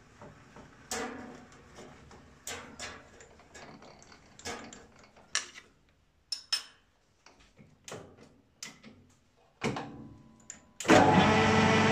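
A series of sharp metal clicks and knocks as the lathe's tool post and carriage are set up against the work. About a second before the end, the metal lathe's motor switches on and runs steadily, spinning the chuck.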